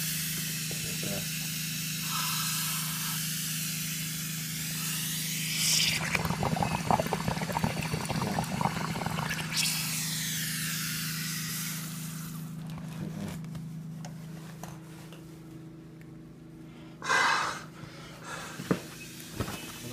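Air escaping from a leak along the seam of an inflated synthetic bagpipe bag held under water, hissing and bubbling; the leak is why the bag is hard to keep full when playing. The hiss fades away about two-thirds of the way through, and a brief louder noise comes near the end.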